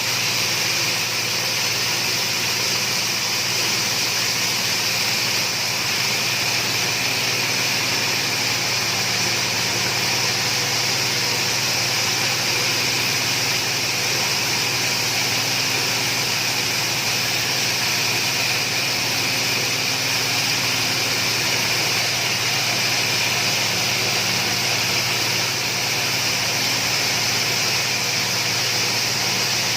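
Multifunction grass chopper and pellet machine running steadily, milling material through a 5 mm screen, with a constant hum and a strong hiss.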